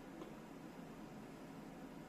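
Faint steady hiss of room tone, with one light click shortly after the start.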